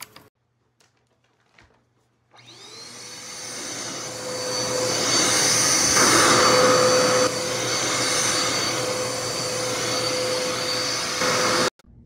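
Upright vacuum cleaner motor starting about two seconds in and winding up to a steady, loud whine as it runs over a rug. It cuts off suddenly near the end.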